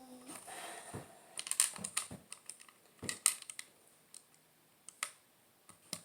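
Plastic Lego bricks clicking and clattering in a series of irregular sharp clicks as pieces are handled and pressed into place.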